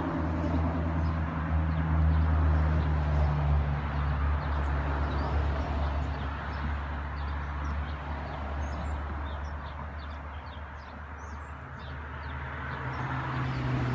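Steady low hum of a crowd of honeybees in an opened four-frame nuc box, its pitch shifting slightly about halfway through, with faint bird chirps.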